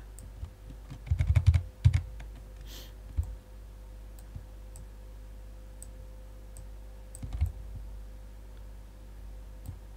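Computer keyboard and mouse clicking: a quick run of clicks about a second in, then a few more around three seconds and again near seven seconds, over a steady faint hum.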